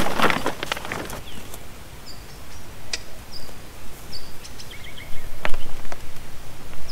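Rustling and crackling for about the first second, then a quieter outdoor background with a small bird chirping briefly several times and a couple of sharp clicks. Low wind bumps are heard on the microphone about five seconds in.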